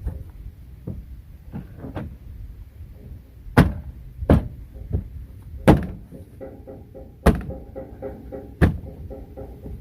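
Chevrolet Silverado door handle and latch being worked to test a newly installed replacement handle: a few faint clicks, then five sharp clunks a second or so apart.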